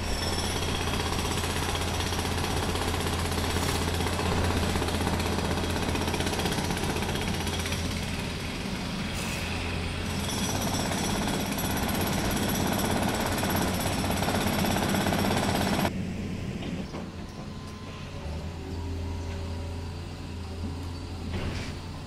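Jackhammer hammering rapidly and continuously, cutting off suddenly about sixteen seconds in. A steady low hum runs underneath and carries on once the hammering stops.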